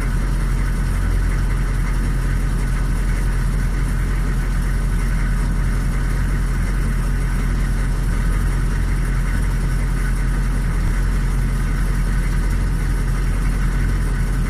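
Diesel engine of a Chevrolet Suburban idling steadily, heard from inside the cab.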